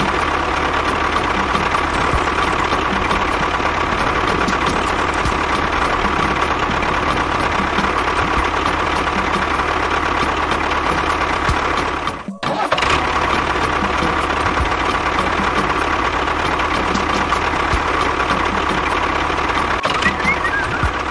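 A small motor running steadily with a constant hum, broken by a brief gap about twelve seconds in.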